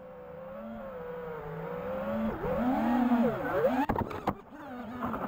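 FPV racing quadcopter's brushless motors and propellers whining, the pitch swooping down and back up twice as the throttle is chopped and punched. About four seconds in, two sharp knocks sound as the quad tumbles.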